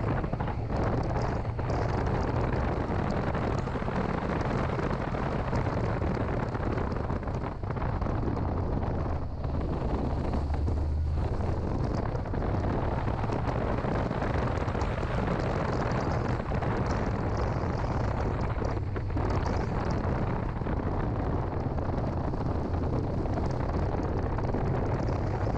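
2006 Mini Cooper S on the move: a steady low engine and road rumble, with wind buffeting the microphone.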